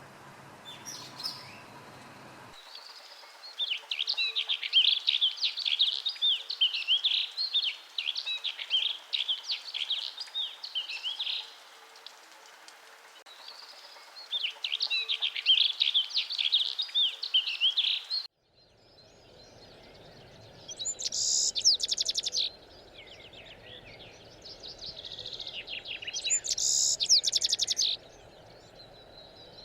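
Mountain songbirds singing: fast, jangling warbled phrases of several seconds each, repeated with short pauses. About two-thirds of the way through, the recording changes to another bird's song, with higher, buzzier phrases.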